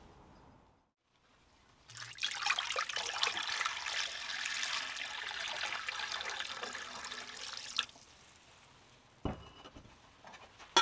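Citric acid solution poured from a jug into a glass baking dish, splashing onto a rusty cleaver blade for about six seconds. A short knock follows a little later.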